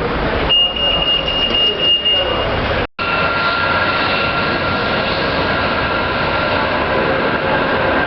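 A vehicle in motion, heard from on board: steady running noise with a thin, high whine on top. It is cut off sharply about three seconds in and resumes with a different, lower whine.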